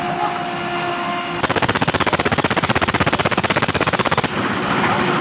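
Power breaker hammer pounding concrete in a fast, even rattle of blows, about seventeen a second, starting about a second in and stopping about three seconds later, over the steady running of an engine.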